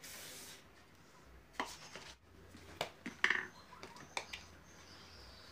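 A paintbrush swishes briefly across the painted board at the start, then a handful of light clicks and knocks as painting tools are set down and picked up on a hard surface, the loudest a little over three seconds in.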